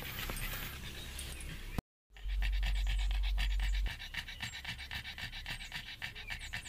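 A pug panting quickly and evenly, several breaths a second, after a brief moment of silence about two seconds in. Just after that silence, a low rumble is the loudest sound for about a second and a half.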